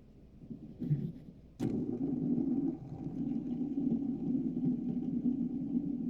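A fidget spinner is flicked with a click and then keeps spinning with a steady whirring hum.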